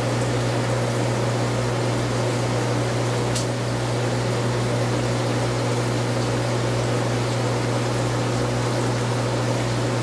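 Steady low hum and hiss of aquarium pumps and filters running, with one brief tick about three and a half seconds in.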